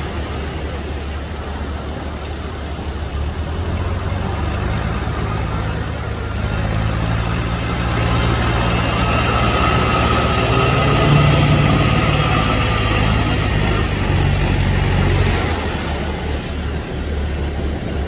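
Engines running steadily: a ski boat's twin outboard motors pushing out through the surf, with a tractor engine running close by and waves washing in. The engine sound swells over several seconds in the middle and eases off a few seconds before the end.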